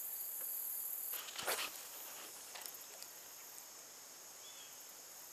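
Steady high-pitched chorus of insects. About a second in it drops to a quieter, steady hiss, with a couple of faint knocks soon after.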